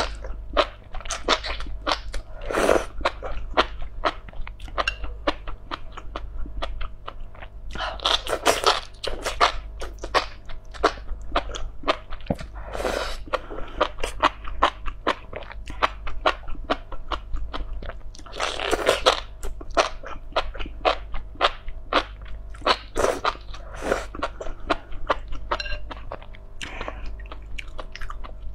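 Close-miked slurping and chewing of spicy enoki mushrooms in chili-oil broth. Dense crisp, crunchy chewing runs throughout, broken by a longer slurp every few seconds as a bundle of mushrooms is sucked in.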